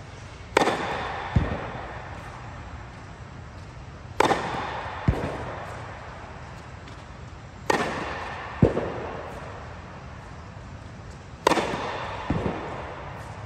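Tennis serves, four in a row about three and a half seconds apart: each a sharp crack of racket strings on the ball that rings on in the echoing dome, followed under a second later by a duller, lower thud of the ball landing.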